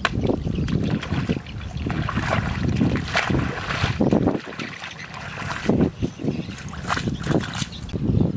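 Wind buffeting the microphone in irregular gusts.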